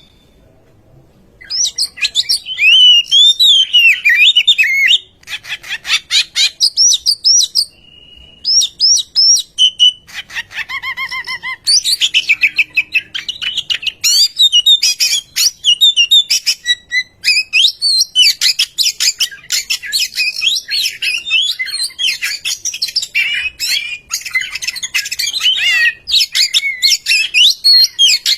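Oriental magpie-robin singing: a fast, varied stream of whistles and chirps broken by harsh rattling passages, starting about a second and a half in after a brief pause.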